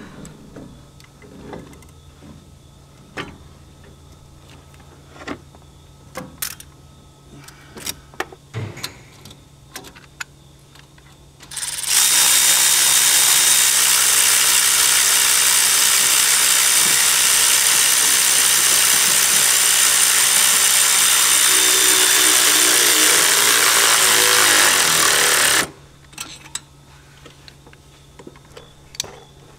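Light clicks and knocks of parts and tools being handled under the hood. Then, about twelve seconds in, a power tool runs loud and steady with a strong hiss for about fourteen seconds before cutting off suddenly, while the turbocharger is being fastened in.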